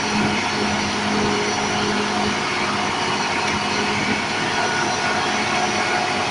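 Heavy diesel engine running steadily with a constant low hum and no change in pitch.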